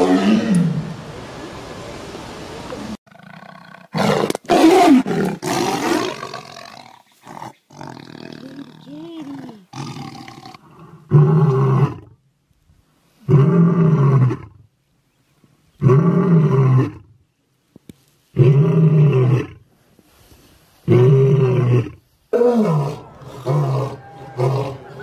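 A tiger roaring for the first few seconds, then a lion's roaring bout. After some lower, uneven calls come loud roars repeated about every two and a half seconds, giving way near the end to a run of shorter, quicker grunts.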